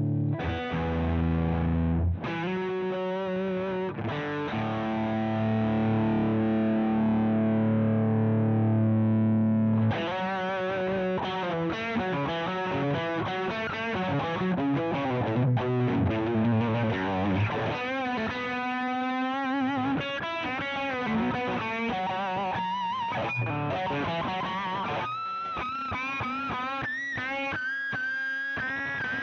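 Electric guitar through a Joyo Deluxe Crunch distortion pedal, a Marshall-style drive clone of the MI Audio Crunch Box. It plays held, distorted chords for about ten seconds, then a single-note lead line with string bends and vibrato.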